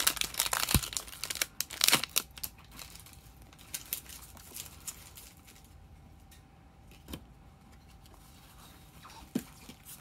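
Foil Pokémon booster pack wrapper crinkling and tearing open for about the first two seconds, then faint rustles and a few light taps as the trading cards are handled.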